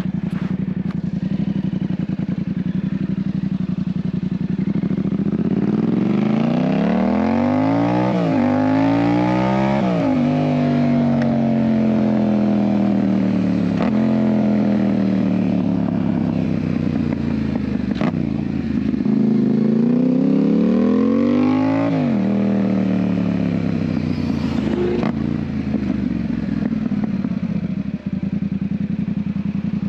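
Yamaha MT-07 parallel-twin engine through an IXIL aftermarket exhaust, running low and steady, then revving up hard with a quick drop in pitch at a gear change, rolling off slowly, pulling up again, and settling back to a low steady note. A few sharp clicks sound along the way.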